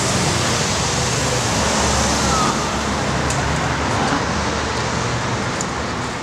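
Steady street traffic noise, an even rushing hum of road vehicles, fading out at the very end.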